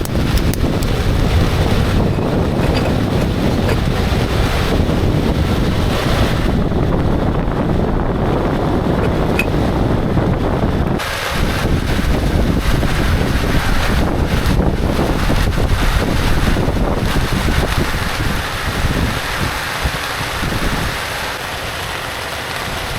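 Strong wind buffeting the microphone, a loud, steady rumbling rush that eases slightly near the end.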